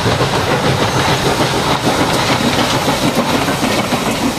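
Two steam locomotives, Nos. 630 and 4501, double-heading a passenger train past close by: a steady rumble with wheels clattering over the rails.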